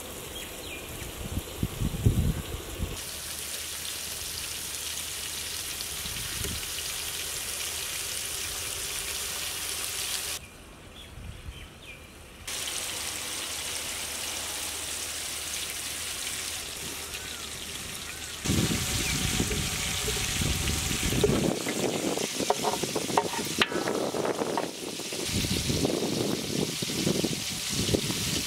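Spice-coated tuna steak pieces sizzling as they fry in hot oil, a steady hiss that changes at several cuts and turns louder and more uneven over the last ten seconds.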